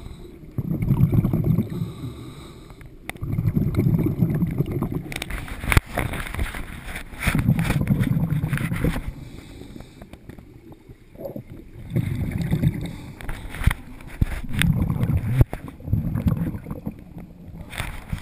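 A scuba diver's exhaled breath bubbling out of the regulator in repeated low, rumbling bursts of one to two seconds, every few seconds, with occasional clicks between them.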